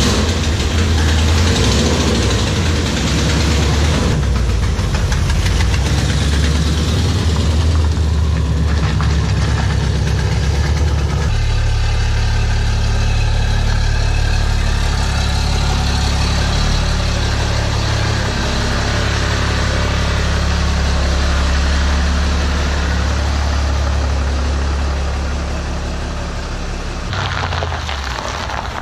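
Pickup truck engine idling steadily; the sound shifts to a different, smoother idle about eleven seconds in.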